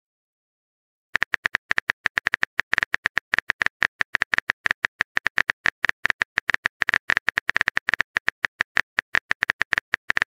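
Texting-app keyboard typing sound effect: a rapid, slightly irregular run of short clicks, roughly seven to ten a second, starting about a second in.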